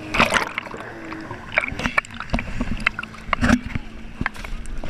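Lake water splashing and spray striking a GoPro housing at the water's surface, heard as a wash with many irregular sharp taps, over a faint steady engine hum from a jet ski.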